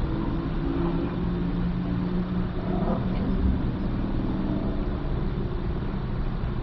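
Steady engine noise: a continuous low rumble with a low, even hum.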